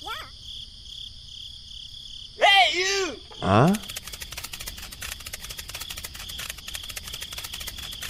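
Crickets chirping steadily, with a short chicken call about two and a half seconds in. Fast high ticking from insects fills the second half.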